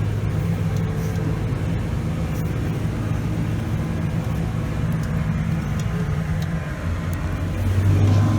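A tractor engine running steadily under load, heard from inside the cab while it pulls a hay rake. It dips briefly and then gets louder near the end.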